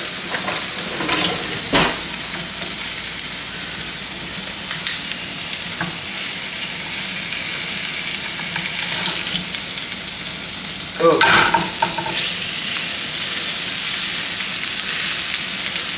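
Cheese-filled tortillas frying in a nonstick pan, a steady sizzle throughout, with one light knock about two seconds in.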